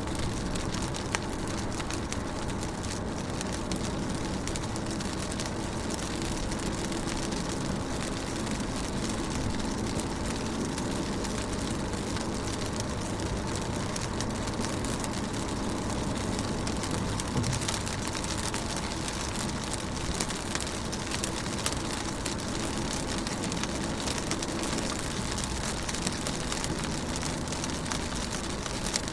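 Steady rain falling on a car's windows, with many individual drops tapping sharply against the glass over a constant low rumble.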